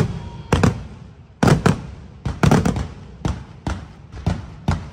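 Fireworks going off in a rapid, uneven string of loud bangs, about a dozen of them, two or three a second.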